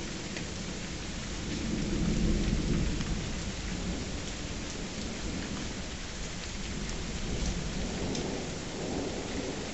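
Steady rain with scattered drops ticking, and a low rumble of thunder that swells about two seconds in and fades again, with a softer rumble near the end.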